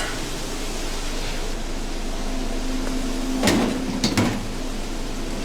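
Steady background hum of a busy restaurant kitchen, with two sharp knocks a little past halfway, about half a second apart.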